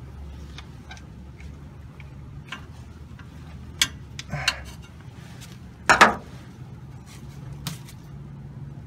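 Scattered metal clicks and taps of a hand tool prying at a filter O-ring stuck up in an automatic transmission, with a short scrape about four and a half seconds in and a louder clack about six seconds in.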